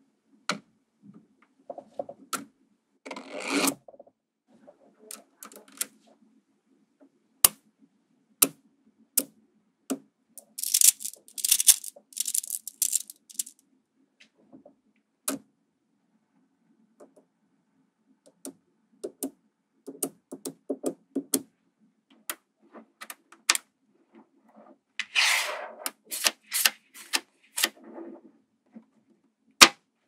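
Small magnetic balls clicking sharply as they snap together, single clicks every second or so, with a few short spells of rapid clattering as rows and clusters of balls are pressed into place about three seconds in, around eleven to thirteen seconds in and near twenty-five seconds in.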